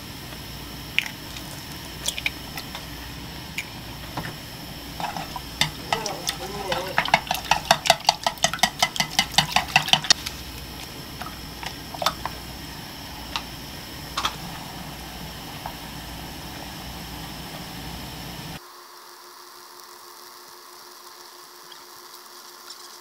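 A spatula stirring beaten eggs into simmering broth in a saucepan. A fast, even run of scraping strokes against the pot comes about five to ten seconds in, followed by a few scattered knocks as soft tofu is cut up with the spatula, over the steady hiss of the simmering pot. Near the end the sound drops to a quieter bubbling.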